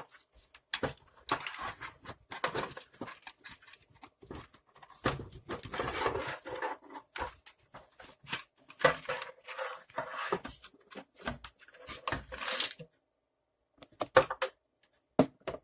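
Objects being handled: an irregular run of clicks, knocks and rustling, with a short pause near the end.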